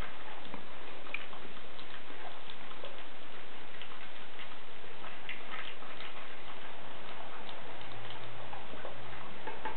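A West Highland white terrier puppy eating: small irregular clicks of food and teeth at the bowl, over a steady hiss.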